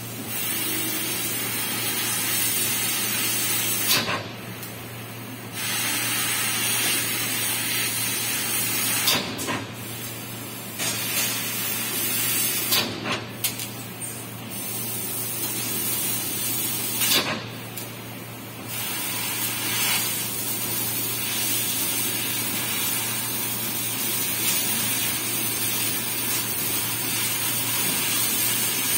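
CNC laser cutting head cutting a metal sheet: a loud, steady hiss of assist gas through the nozzle that stops briefly about four times as the head moves between cuts, with sharp clicks where it cuts out and starts again, over a steady low hum from the machine.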